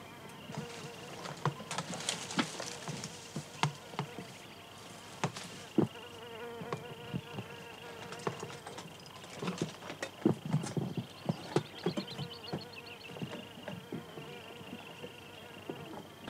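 Irregular knocks, scuffs and scrapes of boots and hands on limestone rock as a climber with a heavy pack picks his way over it. Behind them runs a steady high insect buzz.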